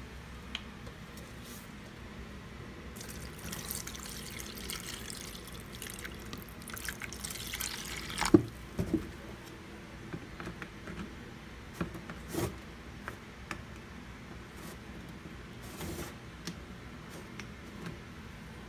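Water running into a plastic basin for a few seconds, then drips and a few sharp splashes in the water.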